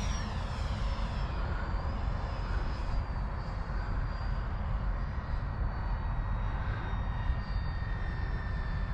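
E-flite Viper 70mm electric ducted-fan jet in flight. Its high whine drops steeply in pitch at the start, then holds as a steadier, quieter whine that sinks slowly.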